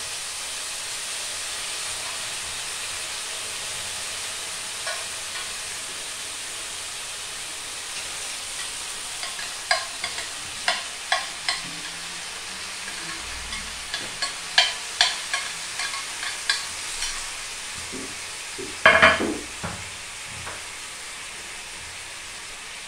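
Hot oil sizzling steadily as food fries, with a run of sharp clicks from about ten seconds in and a louder clatter near the end.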